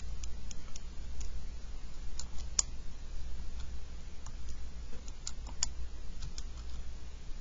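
Arrow keys on a TI-84 Plus CE graphing calculator being pressed, a series of short, irregular plastic clicks, several a second.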